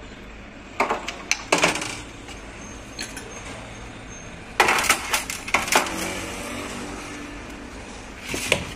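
Metal clinks and knocks from handling a Honda CG 125's disassembled front fork tube and its parts against a metal drain tray. The sharp clinks come in two clusters, about one and five seconds in, with a brief metallic ring after the second, and a few more near the end.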